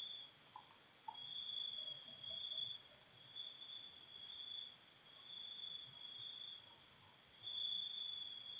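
Insects trilling faintly in the background: a high trill in long pulses about a second each, with shorter, higher chirps in between.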